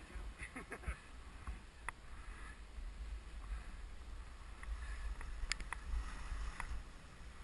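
Skis swishing and scraping through soft powder snow on a descent, over a steady low rumble of wind on the microphone, with a few sharp clicks, the loudest a little past the middle.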